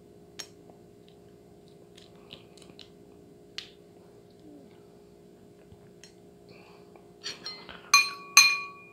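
Balut eggshell being peeled by hand: scattered small cracks and clicks. Near the end come a few sharp clinks of tableware, the last two ringing.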